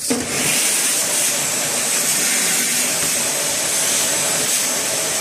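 Vacuum cleaner running steadily, sucking up dust through its hose nozzle; it starts right at the beginning.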